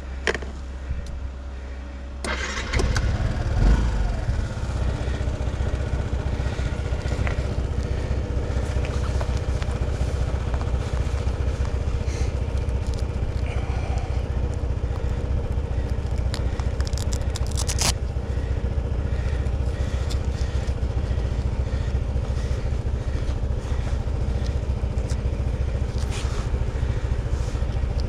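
A vehicle engine starts about two seconds in and then runs steadily with a fast, even firing beat. A few brief clicks and scrapes come over it.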